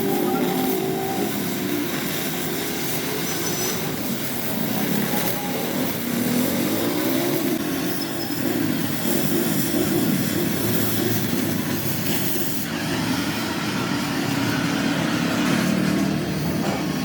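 Steady rumble of running vehicles, continuous throughout with no clear pauses.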